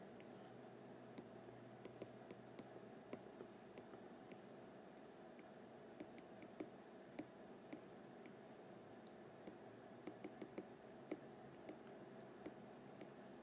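Faint, irregular taps of an Apple Pencil's plastic tip on an iPad's glass screen, some in quick clusters near the end, over a low steady hum.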